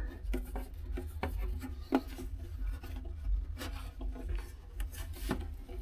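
Rubbing and scraping of a threaded through-hull fitting being screwed on and tightened by hand, with scattered light clicks, the sharpest about two seconds in, over a steady low rumble.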